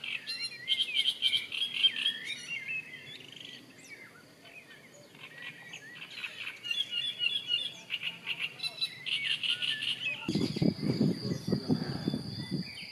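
Small songbirds singing repeated fast trilled phrases, with short pauses between the bursts. About ten seconds in, the sound changes: a low irregular rumble and a steady high tone come in alongside further bird calls.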